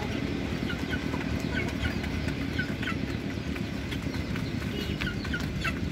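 Young chickens and chicks calling in many short, high peeps and clucks as they feed, over a steady low rumble.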